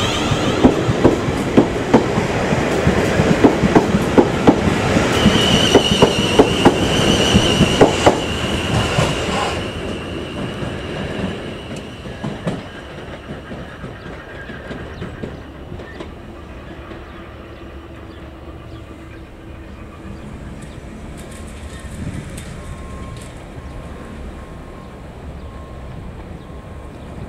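South Western Railway Class 450 Desiro electric multiple unit running past close by, its wheels clattering rapidly over the rail joints, with a high steady squeal for a couple of seconds about six seconds in. About ten seconds in the clatter gives way to a fading rumble as the train draws away.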